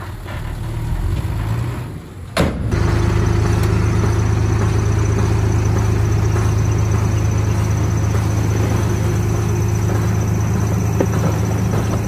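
Heavy diesel construction-machine engine running: quieter and uneven at first, then after a sharp click about two seconds in, a loud, steady low drone with a thin high whine above it.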